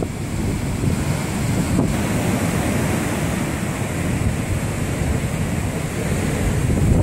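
Heavy ocean surf breaking on a beach in steady noise, with wind buffeting the microphone. The waves are storm-driven surf in the days after a hurricane.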